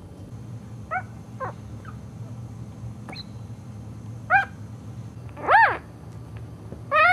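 Newborn Cairn terrier puppies squeaking and whimpering. There are short, high cries that rise and fall in pitch, a second or more apart, over a low steady hum. The loudest cries come about five and a half seconds in and at the very end.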